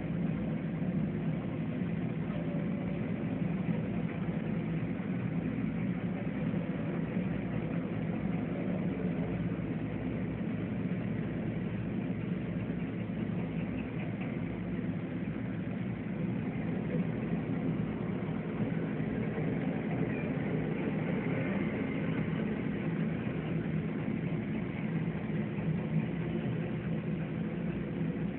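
Steady low rumble of distant city traffic and construction machinery, an even, unbroken engine-like drone.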